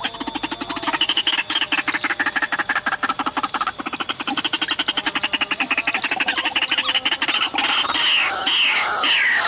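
White-breasted waterhen calling: a fast stuttering run of croaking notes, then near the end a series of loud falling calls, about two a second.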